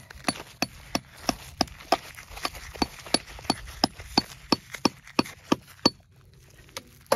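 Hammer blows in a steady rhythm, about three sharp strikes a second, each with a slight metallic ring, stopping about six seconds in.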